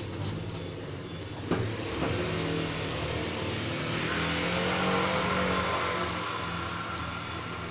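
A motor vehicle's engine running, growing louder toward the middle and then easing off, with two short knocks about one and a half and two seconds in.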